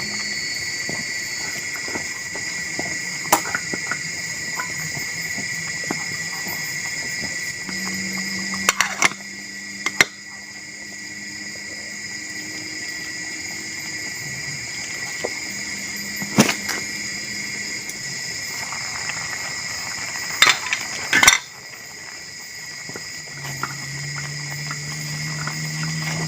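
Steady high-pitched chorus of forest insects, broken by a handful of sharp knocks and clicks.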